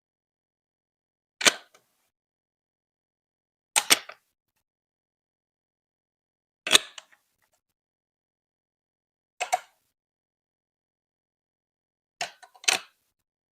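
Short, sharp clacks of hard plastic Lego Duplo pieces, one every two to three seconds, some with a quick double or triple knock, with silence between.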